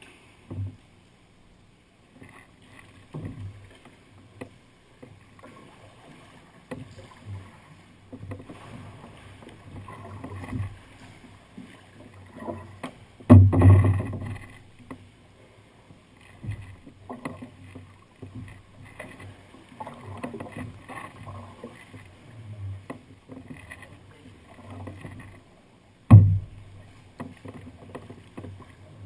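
Sea kayak paddle strokes splashing and water slapping against the hull, coming irregularly every second or two. There is a louder splash or knock about 13 seconds in and a sharp thump near the end.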